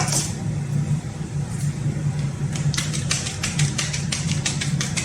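A steady low motor-like hum, with a quick run of short clicks and taps from about two and a half seconds in.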